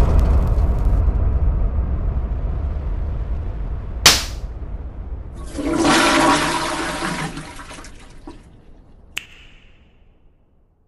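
Toilet flush sound effect, a rushing, gurgling swell from about five and a half to eight seconds in, coming after a low rumble that dies away over the first few seconds. A sharp click about four seconds in and another about nine seconds in.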